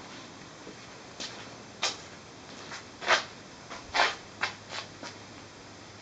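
Footsteps on a concrete pad: a run of short, uneven scuffing steps, loudest in the middle, over a faint steady hiss.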